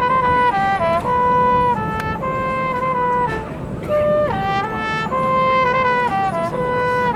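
Marching band brass playing a single melody line of held notes that step down and back up, with a short break about four seconds in.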